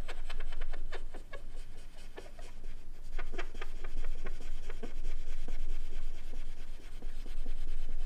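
A cotton-tipped applicator wet with conditioner is scrubbed in quick short strokes over an aluminium beam, making a squeaky, clean rubbing sound. The squeak is the sign that the surface is coming clean of graphite and contamination.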